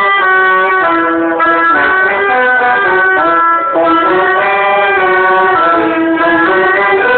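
A quintet playing sustained, moving chords, with brass such as trumpet and trombone standing out.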